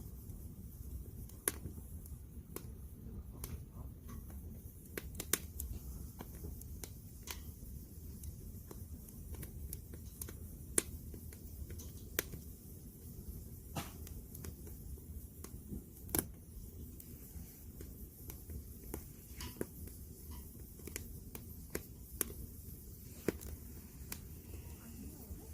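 Firewood burning in a campfire, crackling with irregular sharp pops and snaps over a steady low rumble.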